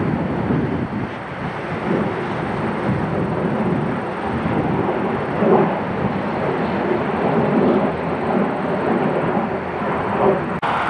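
Fighter jet flying overhead: a steady, loud rush and rumble of jet engine noise that briefly drops out near the end.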